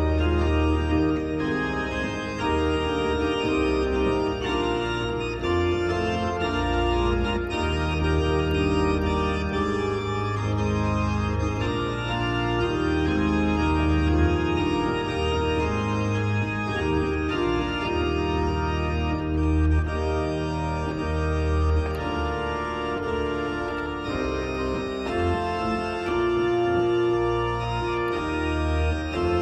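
Two-manual digital organ playing a hymn accompaniment in sustained chords over a deep held bass line.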